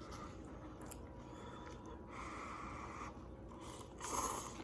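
Faint sounds of a person eating ramen noodles at the microphone: quiet chewing, with a short, louder breathy noise about four seconds in.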